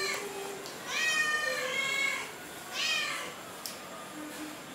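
Domestic cat meowing: one long meow about a second in, then a shorter one near three seconds.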